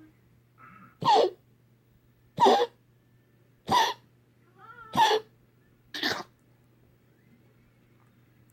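Five short, sharp coughs, about one every second and a quarter, with quiet between them.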